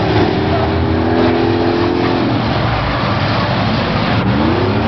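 Engines of school buses and vans racing together around the track. A held engine note drops off about two seconds in, and another engine revs up near the end.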